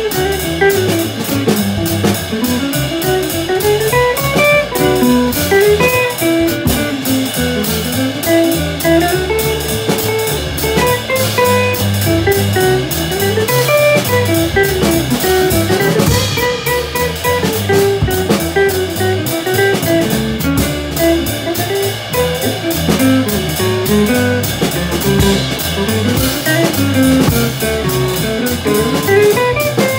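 Jazz trio playing: guitar playing a single-note melodic line over plucked upright bass and drum kit.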